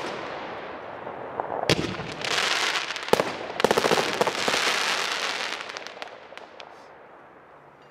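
Aerial firework shells bursting: two sharp bangs about a second and a half apart, each followed by a few seconds of dense crackling from crackling stars, dying away near the end.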